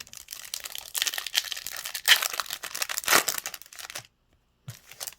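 Foil trading-card pack wrapper crinkling and tearing as it is opened, for about four seconds and loudest near the middle, then a faint tap near the end.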